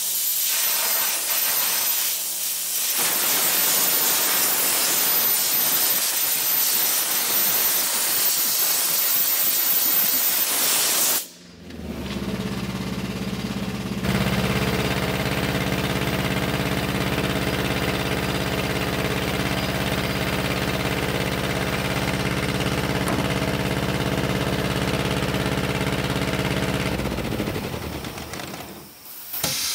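High-pressure water jet from a pressure-washer lance hissing inside a steam boiler during a washout; it cuts off abruptly about eleven seconds in. After that the pressure washer's engine runs at a steady hum until it is shut down near the end.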